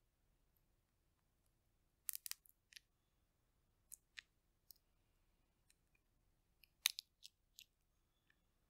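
Roasted chestnut shell cracking and peeling under the fingers: short, sharp crackles in small clusters about two seconds in and around four to five seconds, with the loudest near seven seconds.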